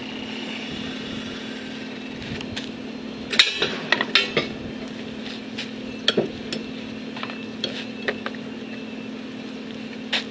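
Sharp metal knocks and clanks as a freshly bent steel pipe is worked loose from a Harbor Freight pipe bender: a quick run of knocks about three and a half seconds in, then scattered single clinks, over a steady low hum.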